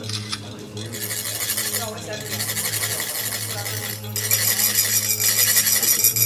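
Tibetan chak-pur sand funnels rasped with metal rods: a continuous metallic scraping that gets louder about four seconds in, over a steady low hum.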